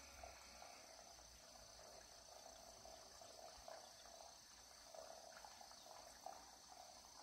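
Near silence: faint outdoor ambience with insects trilling steadily at a high pitch and faint scattered chirps lower down.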